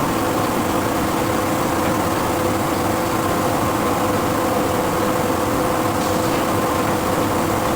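Steady drone of forge-shop machinery, a constant hum with a few held tones and no hammer blows.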